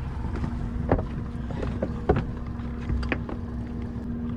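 Steady motor hum from a boat sitting still, with wind rumble on the microphone. A few sharp knocks break through, the loudest about two seconds in.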